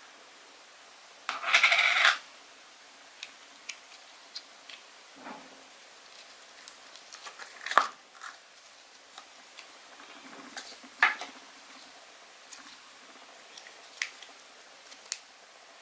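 Slime being handled: a crackly squish lasting just under a second about a second and a half in, then scattered sharp sticky clicks and pops, two louder ones near the middle.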